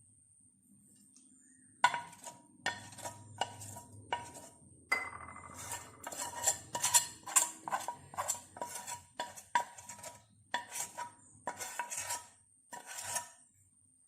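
A spoon scraping and clinking against a pan while thick, sticky herbal syrup-paste (lehya) is scooped out onto a plate. The clinks and scrapes start about two seconds in and come several times a second until just before the end.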